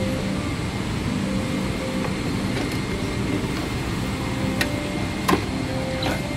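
Steady hum of a Boeing 777-300ER airliner cabin, with three sharp clicks in the second half as the business-class seat's tray table and side storage compartment are handled. The middle click is the loudest.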